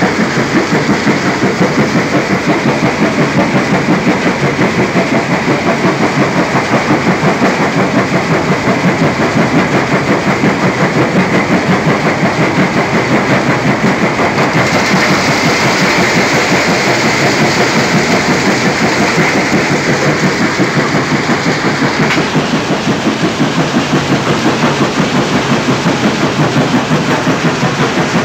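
Vibrating pan feeder running under a load of crushed stone: a loud, steady, fast rattle of rock shaking and sliding on the steel pan.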